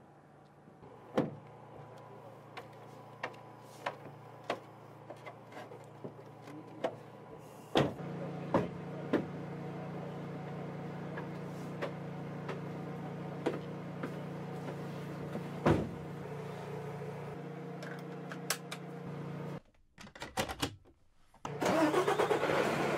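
Truck engine running steadily, heard from inside the cab, with a series of sharp clicks and knocks. The hum grows louder about eight seconds in and cuts off near the end.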